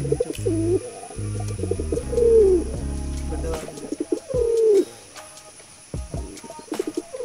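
Domestic pigeon cooing: about three drawn-out coos, each falling in pitch, a couple of seconds apart, over background music.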